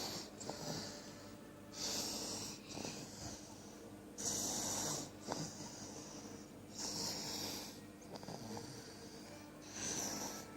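Snoring in sleep: a raspy, hissing snore breath about every two and a half seconds, five in all.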